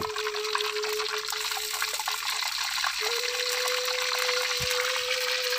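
Fish frying in hot oil in a small pan over a wood fire: a steady sizzle with fine crackling. A steady hum sits underneath; it drops out about two seconds in and returns a second later, a little higher.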